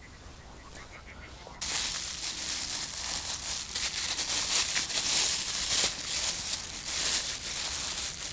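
Faint, repeated duck quacking, then about one and a half seconds in a loud rustling, crackling noise starts abruptly and keeps going.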